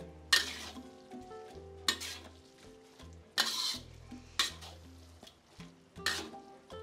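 Metal wok spatula scraping and stirring fresh ribbon pasta in its sauce around a wok, in about five separate strokes.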